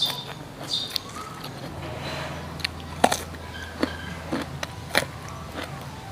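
Close-up eating sounds: crunchy food bitten and chewed, in a few separate crunches and sharp clicks.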